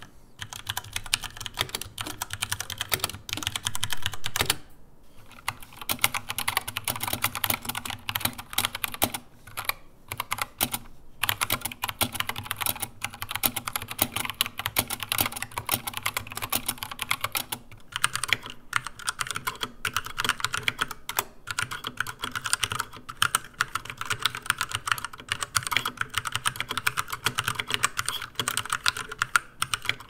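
Steady typing on 60% mechanical keyboards with tactile brown switches, one after another: the MantisTek GK3-61 with Cherry MX Browns, then an Anne Pro with Gateron Browns, then a Poker II with Cherry MX Browns. There is a short pause about five seconds in.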